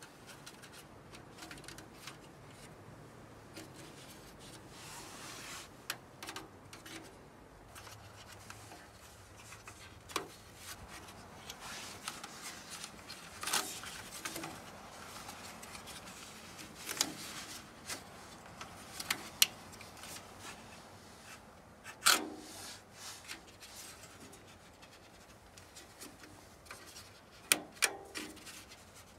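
Hands working a flexible corrugated aluminium chimney pipe: crinkling and rubbing of the thin metal duct and small clicks of wire being twisted through it to fasten it to the stove's pipe collar, with scattered sharp clicks throughout.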